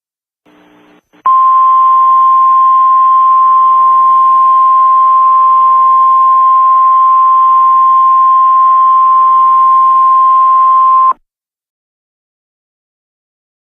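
Emergency alert attention signal: a single steady tone just above 1 kHz, held for about ten seconds over a hiss, then cut off. A faint brief burst of static comes just before it.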